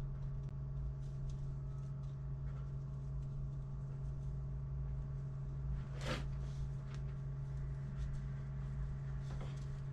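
A steady low hum with faint handling ticks, and one brief sharp hiss about six seconds in.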